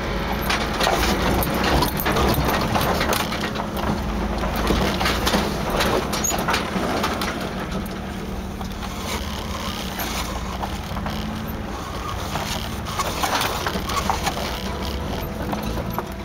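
Engine and tyres of a 1988 Toyota 4Runner crawling a rocky trail, heard from inside the cab: the engine runs at a low, steady pitch while rocks crunch and knock under the tyres again and again.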